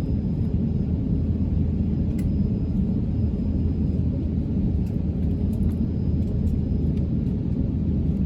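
Steady low rumble of an airliner cabin: jet engine and airflow noise heard from inside the plane.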